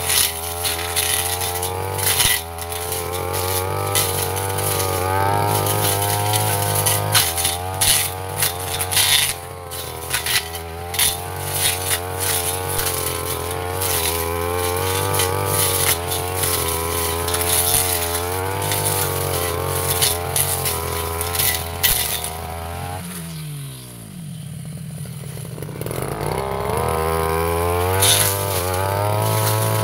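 Backpack brush cutter engine running at high revs, its speed wavering under load as the blade cuts through dense brush and woody saplings, with frequent sharp hits from stems striking the blade. Near the end the throttle is released and the engine falls to idle for a couple of seconds, then revs back up.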